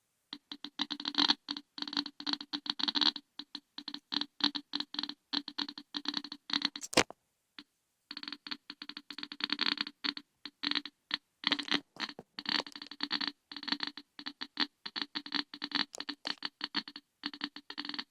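Geiger counter clicking through its speaker in a fast, irregular stream, each click one detected radiation count, so the clicks bunch and thin out at random. The clicking stops for about half a second near the middle, then resumes.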